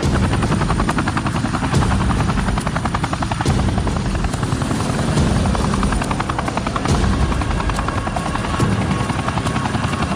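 UH-60 Black Hawk helicopter in flight, its rotor blades making a fast, steady chop over the engine noise.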